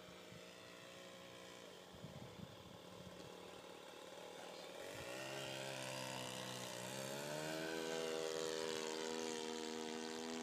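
Radio-controlled old-timer model airplane's motor and propeller running in flight, growing louder as the plane makes a low pass, its pitch dipping and then rising as it goes by, loudest about eight seconds in.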